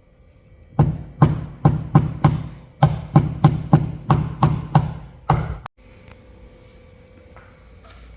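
About a dozen sharp taps of a hammer on a paintless-dent-repair knockdown tool against an aluminium car hood, about three a second with a short pause partway. The taps work down high spots around the dent, then stop suddenly.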